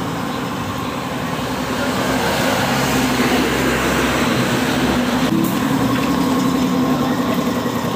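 Small scooter engine running steadily with a fast, even pulsing, stepping slightly higher in pitch about five seconds in.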